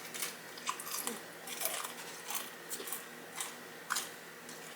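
Close-miked eating sounds: a person biting and chewing food with irregular short, sharp chews, the sharpest about four seconds in.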